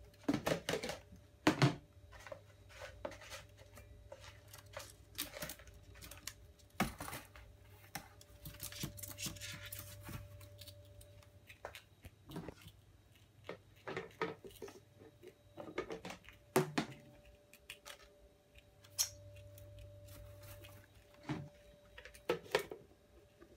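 Scattered, irregular clicks and rustles, with a faint steady hum underneath.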